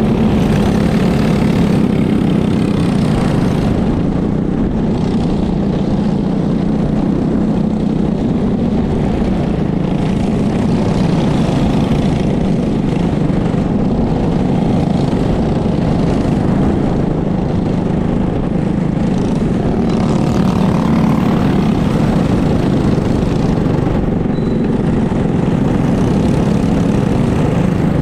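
Racing go-kart engine running continuously at race speed, heard onboard the kart, with no breaks in the sound.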